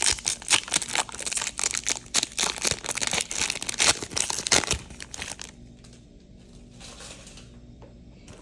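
Foil wrapper of a baseball card pack crinkling and tearing as it is opened, a dense crackle for about five and a half seconds. After that, only faint rustling as the cards are handled.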